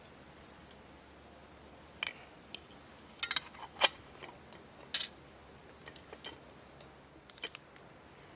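Dry wood snapping and popping in a scattered series of sharp cracks. The cracks start about two seconds in and trail off near the end, with the loudest about four seconds in.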